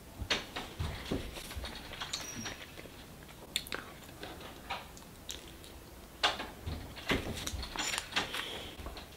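A child eating sticky raw honeycomb: chewing and licking honey off his fingers, heard as scattered irregular clicks from the mouth and sticky fingers.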